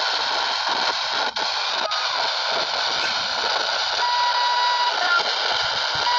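Sony three-band portable radio giving out steady static hiss from its speaker, with a brief steady whistle tone about two-thirds in and again near the end.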